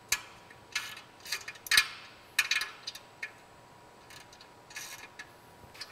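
A wrench tightening the bolts that hold a car wash side brush hub to its motor shaft: short, sharp metal clicks and clinks in irregular bursts, about eight in all.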